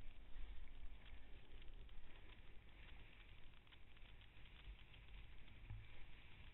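Wind rumbling and buffeting on the microphone of a body-worn camera, with a faint scratchy crackle of a snowboard gliding over snow.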